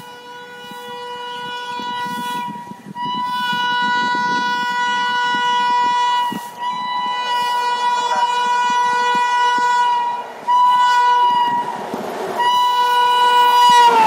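WAP7 electric locomotive's air horn sounding in long, almost continuous blasts with short breaks, getting louder as the express approaches at speed, with train rumble building underneath. Right at the end the horn's pitch drops as the locomotive passes.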